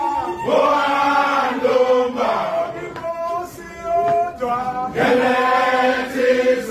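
A group of men chanting a traditional Zulu song together in long, held phrases, with a quieter stretch in the middle.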